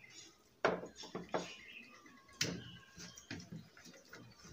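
Eating sounds: fingers mixing rice and fish curry on ceramic plates, with chewing and a few sharp mouth clicks and smacks. The loudest smacks come about two-thirds of a second in and again about two and a half seconds in.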